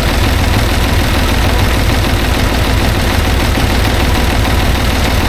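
An engine running steadily at a constant speed, with a low, even rumble.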